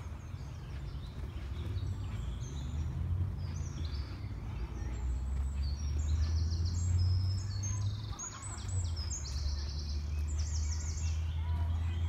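Woodland songbirds singing, with many short, fast trilled phrases, the busiest stretch past the middle. Under them runs a steady low rumble on the microphone, which is the loudest sound.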